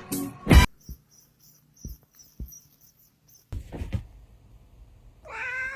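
A cat meows once near the end, a single drawn-out call that bends in pitch. Before it come a few short taps and a brief rustling burst.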